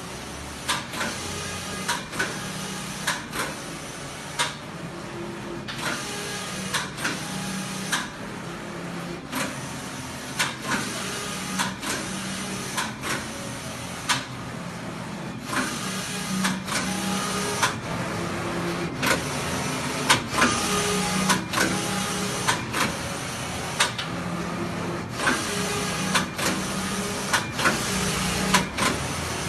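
JP-712 collar knitting machine running: a steady hum with sharp mechanical clacks recurring about once or twice a second, easing briefly twice.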